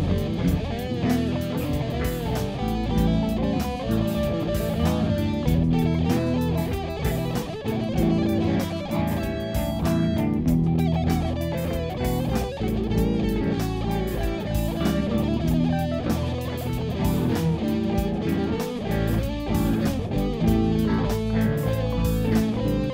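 Music led by electric guitar, over a steady beat.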